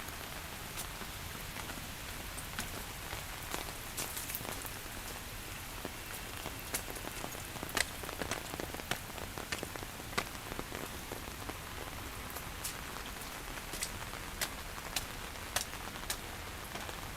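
Rain falling: a steady hiss with many separate drops striking close by as sharp ticks.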